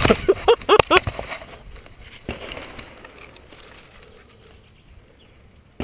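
A man's short repeated cries and grunts in the first second, mixed with sharp knocks and rustling as he drops into the grass behind cover. A few more knocks follow about two seconds in, then fading low noise. A sudden sharp knock comes at the very end.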